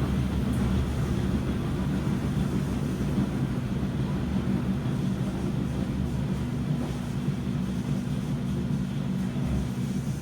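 Washing machine running with a steady low rumble and hum.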